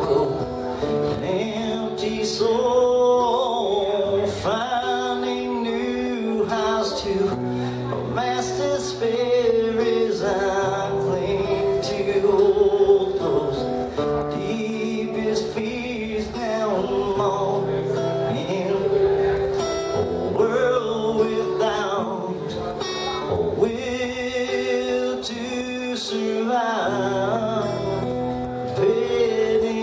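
A man singing to his own strummed acoustic guitar, with drawn-out vocal notes over a steady strum.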